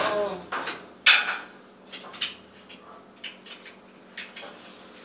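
A few sharp knocks and clatters, the loudest about a second in and dying away quickly, followed by scattered lighter clicks, with a voice trailing off at the very start.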